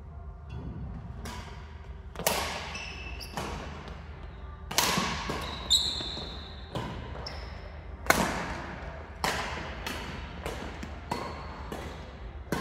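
Badminton rackets striking the shuttlecock in a doubles rally: sharp, echoing hits about once a second, with brief squeaks of shoes on the court floor between them.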